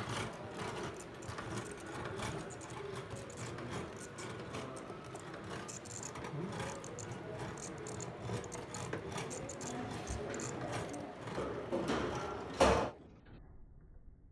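Hand-cranked Mutoscope flip-card viewer running: the reel of photo cards flicks past the brass stop in a fast, continuous clatter of clicks. Near the end there is one loud knock, and the sound cuts off.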